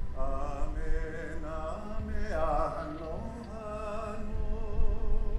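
Solo singing in long held notes with a wavering vibrato, loudest around two to three seconds in, over a steady low rumble.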